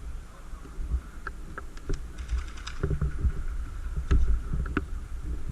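A short, rapid burst of airsoft gunfire, a quick even string of sharp clicks, about two seconds in, over the scuffing and knocking of a player moving with a body-worn camera.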